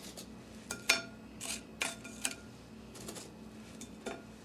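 Dry toasted bread slices set down one by one in a glass baking dish: several light knocks and clinks against the glass, the sharpest about a second in with a brief ring of the glass.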